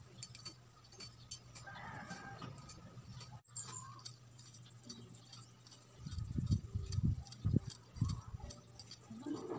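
Chickens clucking, with a rooster crowing, over a steady low hum. Several loud low thumps come between about six and eight and a half seconds in.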